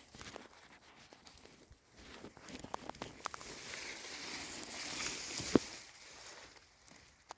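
Rustling and scattered crackles of someone moving through forest undergrowth, swelling in the middle, with one sharp snap about five and a half seconds in.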